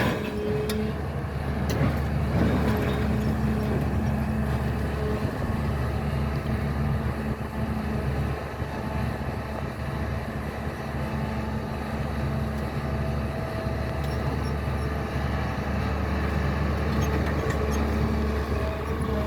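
SANY hydraulic excavator's diesel engine running steadily under load, a continuous low hum.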